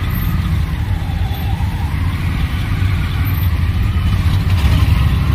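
Dense, slow-moving road traffic: car engines running close by, a steady low rumble.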